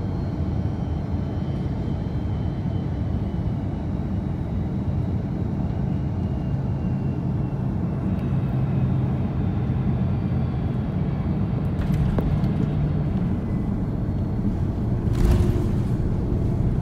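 Airbus A330 cabin noise on landing, heard from inside the cabin: a steady low rumble that grows a little louder partway through as the airliner comes down onto the runway and rolls along it. Two short knocks come late on, the louder one near the end.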